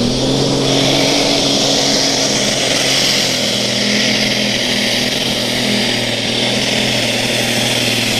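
Super stock pulling tractor's turbocharged engine running hard at steady high revs while pulling down the track, its note holding one pitch with a strong high hiss over it.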